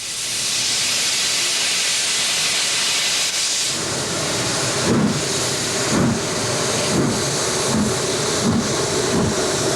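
J72 0-6-0 tank steam locomotive hissing steam, then starting away: about four seconds in its exhaust beats begin at about one a second, quickening slightly, with the hiss going on underneath.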